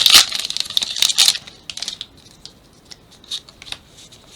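Foil wrapper of a Pokémon TCG booster pack crinkling and tearing open, dense crackling for about the first second and a half, then a few scattered crinkles as it is handled.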